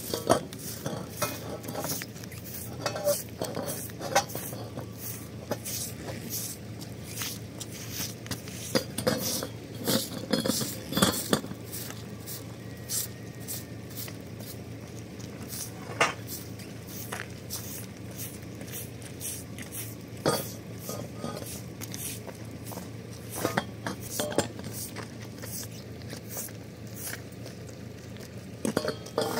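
Steel tent-frame poles clinking and clanking against each other and the concrete as they are handled and laid down, with a run of clanks about ten seconds in and single louder knocks later. Under them, a straw broom scrapes short strokes across the wet concrete.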